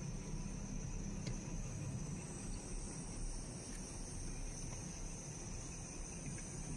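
Freight train of autorack cars rolling slowly past, a steady low rumble of wheels on rail. Above it, a steady high insect trill runs throughout.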